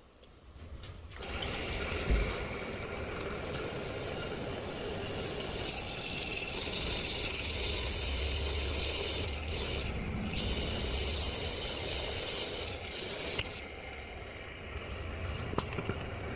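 Pillar drill running with an HSS hole-cutter bit boring through thick steel flat bar: a steady grinding cutting noise that starts about a second in, grows louder and harsher midway, and eases off about three seconds before the end as the cut finishes.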